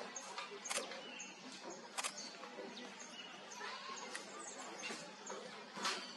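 Forest ambience: faint, high, short chirps of small birds, with a few sharp clicks or rustles.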